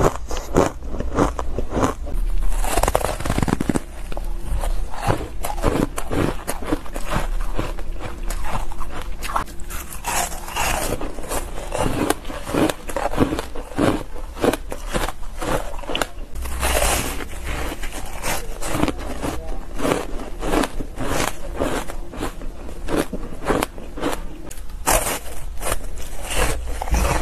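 Ice being bitten and chewed in the mouth close to the microphone: a dense, uneven run of crackling crunches. It is first purple shaved ice eaten from a spoon, and later soft frozen white ice blocks bitten by hand.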